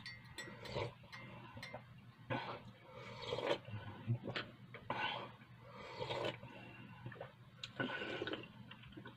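A man slurping tea from a glass mug in several noisy sips spread over a few seconds.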